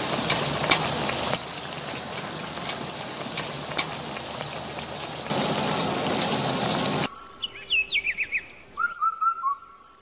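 Hot oil sizzling and crackling as tofu deep-fries in a wok. About seven seconds in it cuts off abruptly, and birds are heard chirping and whistling in quick short notes.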